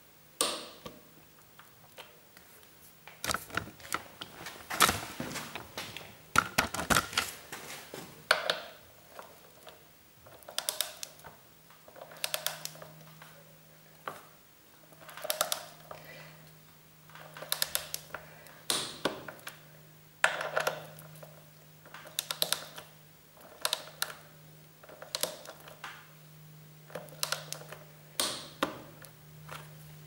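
Ratchet head of a torque wrench clicking in short bursts, a burst every second or two, as the front axle clamp bolts are turned down.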